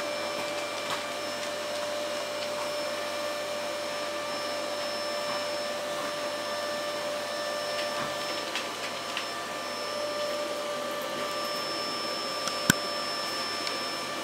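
Steady whine and hiss of a running electric motor, holding one pitch throughout, with a single sharp click near the end.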